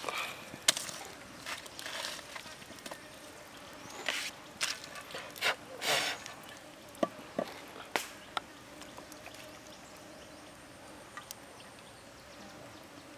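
Small wood fire crackling, with irregular pops and clicks and short rustling bursts as sticks are added and shifted. The busiest stretch is in the first eight seconds; after that only a few scattered pops.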